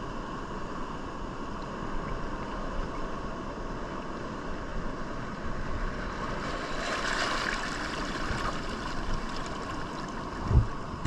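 Steady rushing noise of shallow seawater, with wind on the microphone. It swells for a moment about seven seconds in, and a short thump comes near the end.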